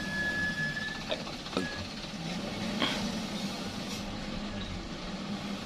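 Truck engine running steadily at a low level. A thin high tone sounds for about the first second, and a few faint clicks follow.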